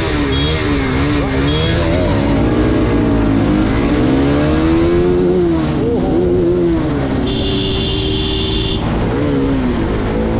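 Two Bajaj Pulsar RS200 motorcycles with stock exhausts running at speed side by side, their single-cylinder engines rising and falling in pitch with the throttle over a steady low rumble. A steady high tone sounds for about a second and a half near the end.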